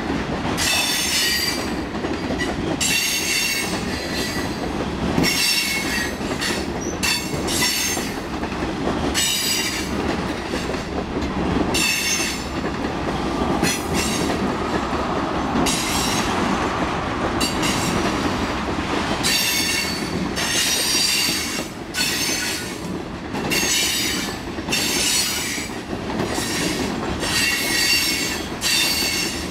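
Freight train cars rolling past close by: a steady rumble of steel wheels on the rails, with repeated high-pitched wheel squeals, each lasting about a second, coming and going throughout.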